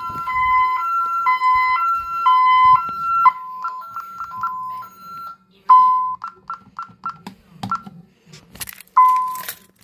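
Honeywell Vista 20P alarm keypad sounding a medical-emergency alarm as a hi-lo two-tone beep about twice a second, which stops about three seconds in as the code is keyed. It is followed by short key-press beeps and a few longer single beeps as the alarm is cleared.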